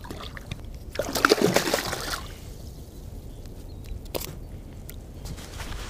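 Water splashing and trickling as a hand grabs a small spotted gar at the surface and lifts it out, busiest from about one to two seconds in, then quieter dripping, with one sharp tap about four seconds in.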